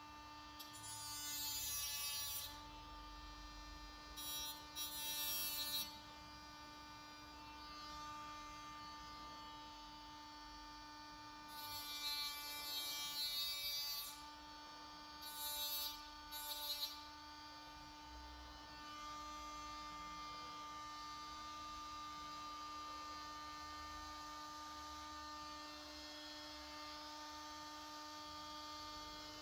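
Small cordless hand grinder cutting the protruding ends of metal hot-stapler staples off a plastic grille, with sparks. There are four short bursts of cutting in the first seventeen seconds, each one to two and a half seconds long, with a steady hum between them.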